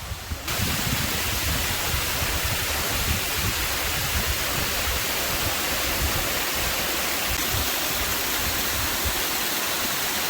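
Waterfall rushing water cascading over tiered rock steps, a steady loud rush that jumps up abruptly about half a second in.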